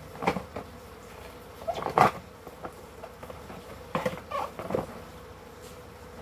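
Cardboard and plastic packaging being handled: scattered rustles, scrapes and light knocks, the loudest about two seconds in and a cluster around four seconds, over a faint steady hum.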